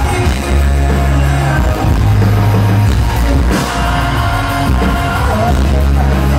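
Pop-rock band playing live: a singer over electric guitar, drums, keyboard and a heavy bass line through a concert PA.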